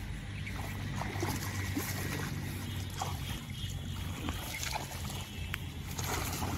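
Water splashing and trickling as a wet cast net is hauled up out of a pond and bunched in the hands, with irregular drips and splashes, over a low steady rumble.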